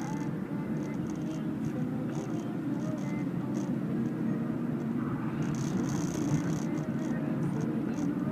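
Steady road and engine noise of a car driving along a paved road, heard from inside the car.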